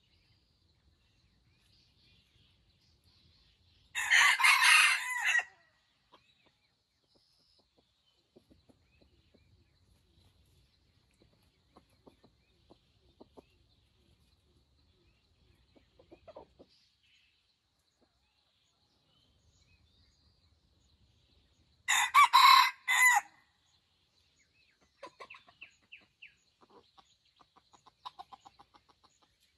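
A rooster crows twice, each crow about a second and a half long, the second about eighteen seconds after the first. Near the end come softer, quick clucking calls.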